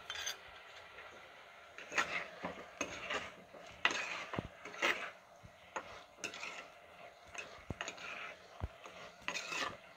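A spoon scraping and knocking against an earthen clay pot while chicken pieces and onions are stirred, in irregular strokes about every half second to a second.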